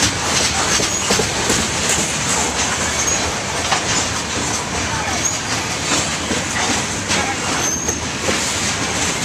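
Freight train cars, tank cars and covered hoppers, rolling past close by: a steady rumble of steel wheels on rail with clicks and clatter over the joints, and a few brief high-pitched wheel squeals.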